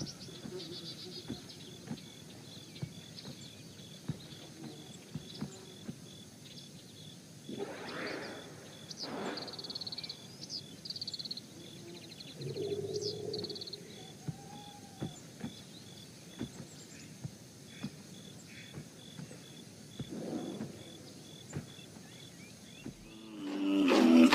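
Nature ambience: a regular high insect chirp with scattered bird chirps and a few soft low rustles and knocks. Music swells in right at the end.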